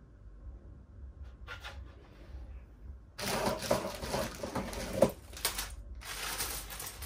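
A plastic bag crinkling and rustling as metal hinges and screws are taken out of it, starting about three seconds in, with one sharp click near the middle. A second stretch of rustling follows a short pause, with light metal clinking of the hardware.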